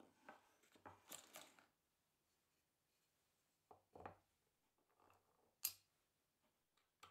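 Plywood lathe parts handled and fitted onto steel guide rods: a scatter of light wooden knocks and scrapes in the first two seconds, a couple of soft knocks around four seconds, then one sharp click just before six seconds.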